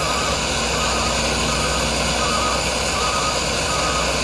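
Handheld gas torch burning with a steady rushing hiss as its flame heats a copper pipe fitting for soldering.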